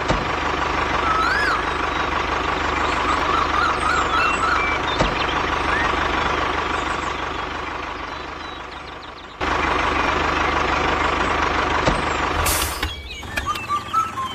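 Heavy vehicle engine running steadily, truck-like, with an abrupt cut about nine seconds in and a short hissing burst near the end.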